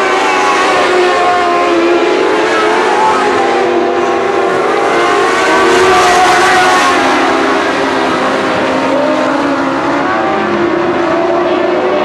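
Modlite race car engines at speed on a dirt oval, several pitches revving up and down through the turns. The sound swells loudest about six seconds in as a car passes close.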